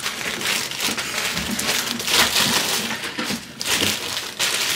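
Plastic mailer bags crinkling and rustling as they are handled and opened, an uneven run of crackles.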